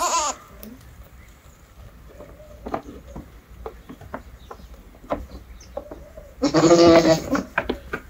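A goat bleating: one long, quavering bleat about six and a half seconds in, with a shorter call right at the start.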